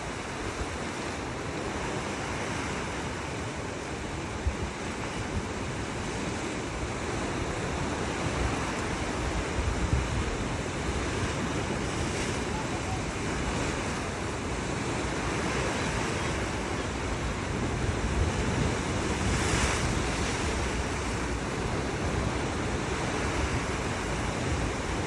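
Sea waves washing on the shore in a steady surf, with wind rumbling on the microphone.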